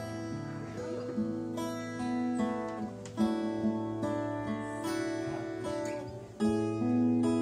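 Two acoustic guitars playing an instrumental passage together, a mix of strummed chords and picked notes, with harder strummed chords about three seconds in and again near the end.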